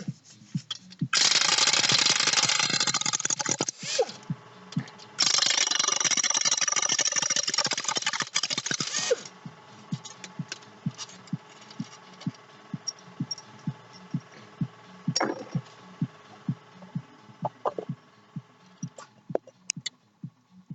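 Two long bursts of loud hissing, then a steady run of light ticks about two a second over a faint hum.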